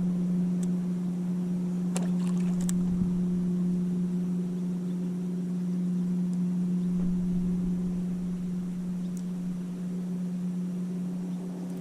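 A boat motor running with a steady, even hum while the boat moves slowly during fishing. A few light clicks come about two seconds in.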